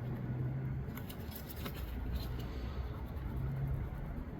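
A few faint plastic clicks from hands working an ignition coil's electrical connector and its clip, over a low steady hum.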